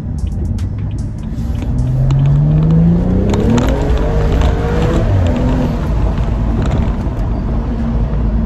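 Stage 2-tuned BMW M135i's turbocharged N55 straight-six pulling under acceleration, its note rising steadily for about three seconds and then dropping back as the throttle comes off, with scattered exhaust pops from the pops-and-bangs map.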